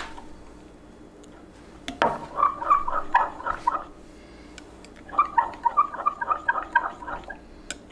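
Metal spatula stirring liquid plastisol in a glass measuring cup, clinking and scraping rapidly against the glass in two runs of about two seconds each, the first starting about two seconds in.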